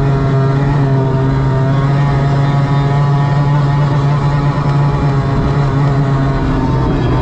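Mercury F1 race outboard, a two-stroke V6, running at a steady high pitch at racing speed, with wind and water noise over the hull.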